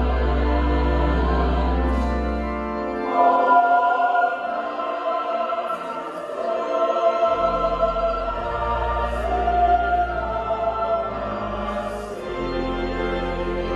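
Mixed choir singing a sung setting at evensong, with a deep held organ bass note beneath. The bass note drops out about three seconds in and comes back about four seconds later.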